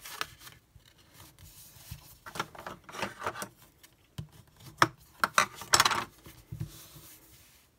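A cardstock card base being handled on a craft mat: paper sliding and rustling with light taps, the louder rustles and taps coming in the second half.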